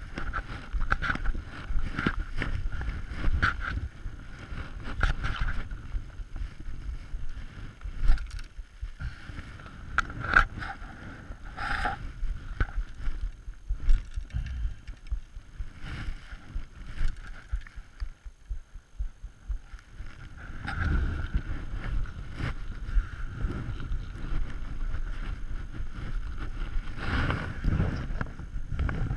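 Handling and walking noise on a body-worn action camera: footsteps in snow and clothing brushing against the camera housing, heard as irregular knocks and rustles with a low rumble, thinning out for a while mid-way and thickening again later.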